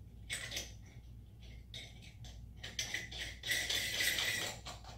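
Chrome shower fittings handled and screwed together: a chrome cover dome going onto the compression joint, with a few light metallic clicks, then a louder grating scrape lasting about a second near the end.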